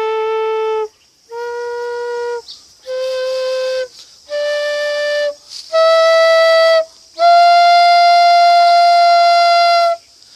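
Homemade bamboo flute (bansuri) played up its scale, one note per finger hole: six separate notes of about a second each, stepping higher each time, the last held for about three seconds, with audible breath hiss. It is a pitch test of the flute's holes.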